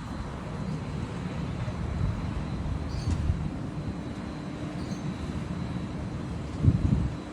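Low, uneven outdoor rumble, with a faint steady hum coming in about halfway and a louder swell near the end.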